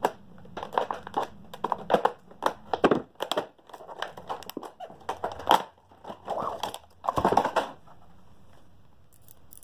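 Product packaging crinkling and tearing as it is pulled open by hand, a dense run of crackles and scrapes that stops about eight seconds in, with a faint click or two near the end.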